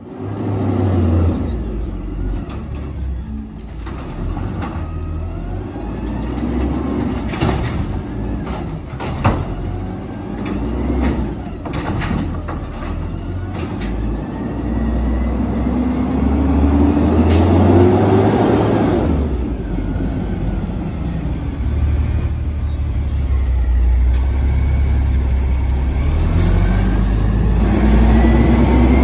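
A 2007 American LaFrance Condor side-loader garbage truck drives by with its engine running low and heavy. The revs rise a few times as it pulls along, and its air brakes let out short sharp hisses.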